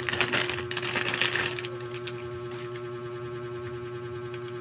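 Clear plastic packaging crinkling and rustling as it is opened and handled, busiest in the first second and a half, then a few faint clicks. A steady hum runs underneath.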